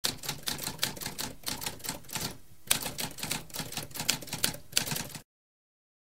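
Manual typewriter keys clacking in a quick run of keystrokes, with a brief pause about halfway through; the typing stops a little after five seconds in.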